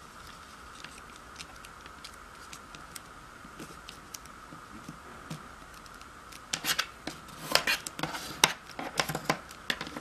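Origami paper being folded and creased by hand: light scattered paper taps and rustles, then over the last few seconds a burst of sharp, crisp crackles and clicks as the folds are pressed flat.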